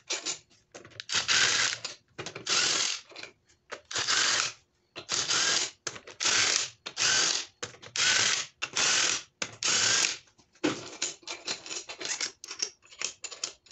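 Ratchet wrench loosening the 14 mm main bearing cradle bolts on a Honda D16Y7 engine block. It makes about ten separate half-second runs of clicking, then shorter, scattered clicks near the end.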